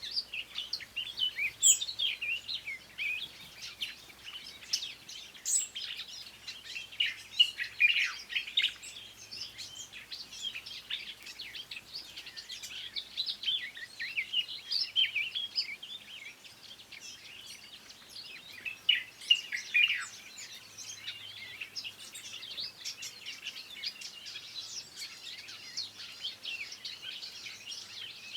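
Several small songbirds chirping and warbling in quick, overlapping high notes, with louder flurries here and there.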